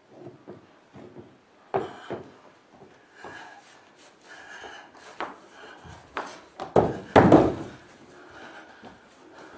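Irregular scraping, rubbing and knocking of a performer's body and hands moving and crawling on a stage floor, with a heavy thump about seven seconds in.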